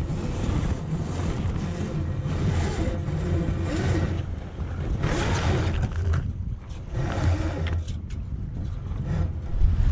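Wind rushing over the microphone and the sail's cloth flapping and rustling overhead in the breeze, with a few louder gusts and brief cracks.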